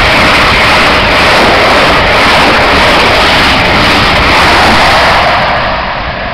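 High Speed Train (InterCity 125) passing at speed close by: a loud, steady rush of wheels on rail and air, easing off a little near the end.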